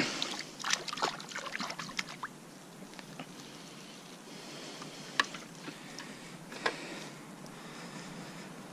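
Handling a just-landed bream and its tackle: a quick run of rustles and sharp clicks for about two seconds, then a faint steady hiss broken by two single clicks.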